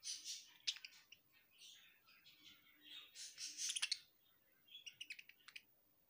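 A budgerigar held in the hand, chattering in short harsh calls and quick clicks, in several spurts. The loudest run comes about three and a half seconds in.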